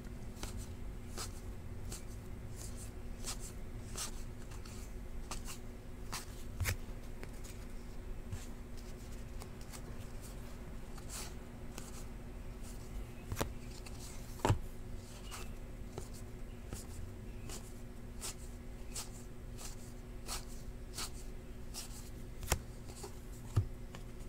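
Stack of Panini Classics football cards being flicked through by hand, card after card slid from front to back with quick light clicks and rustles, a few sharper snaps among them. A low steady hum runs underneath.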